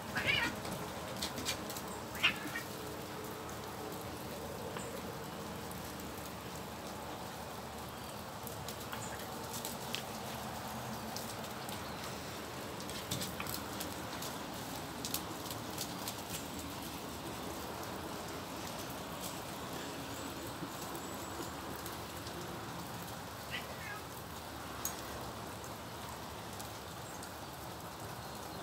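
Steady rain falling, with scattered sharp drips. A Bengal cat gives short meows twice in the first few seconds and once more near the end.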